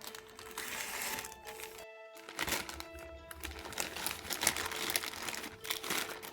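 Plastic packaging crinkling and rustling as it is handled and opened, over background music with held tones.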